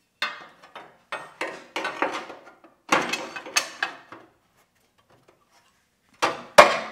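3/16-inch steel plates clanking and scraping against a Jeep frame as they are set in place for a test fit: a run of metal knocks and rattles, a pause of about two seconds, then two sharp, loud clanks near the end.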